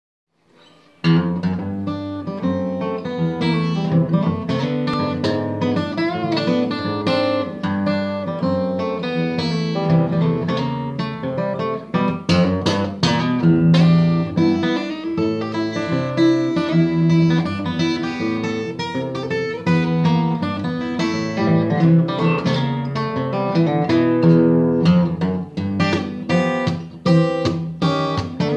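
Martin D-1 steel-string acoustic guitar played fingerstyle: a swinging jazz-blues piece with picked bass notes under the melody, starting about a second in.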